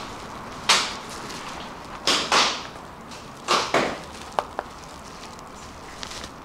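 Plastic bubble wrap rustling and crinkling as it is handled and pulled, in five short swishes, followed by two sharp clicks about halfway through.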